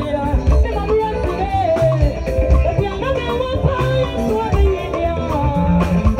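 Live band playing upbeat gospel music, with a steady drum beat, bass notes and a lead melody line over them.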